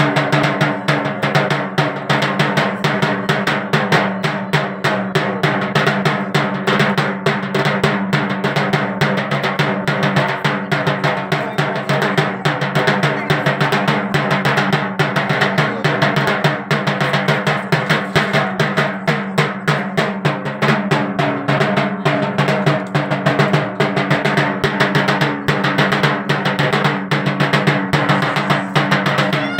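Dhak, the Bengali barrel drum, beaten fast and continuously with sticks, with a steady ringing tone held underneath.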